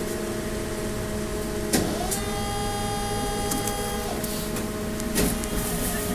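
Trolleybus interior at a stop: a steady electrical hum runs throughout. A clunk comes about two seconds in, followed by a steady mechanical whine for about two seconds, and another clunk comes about five seconds in.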